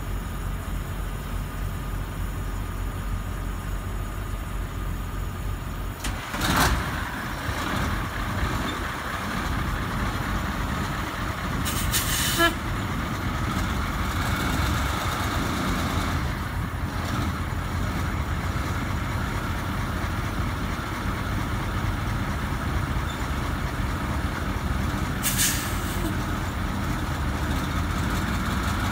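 Diesel engine of a Ford C-series fire truck idling steadily, with three brief hisses of air, like air-brake releases, about 6 s, 12 s and 25 s in.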